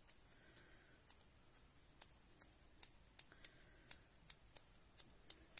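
Near silence with faint, sharp little clicks, irregular and about three a second, from nitrile-gloved fingers pressing and smoothing air-dry clay on a pen barrel.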